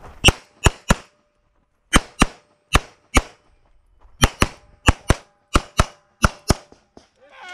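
Semi-automatic pistol shots fired rapidly, about fifteen in all: three quick shots, then mostly quick pairs, with two gaps of about a second. A faint ringing tone lingers between some of the shots.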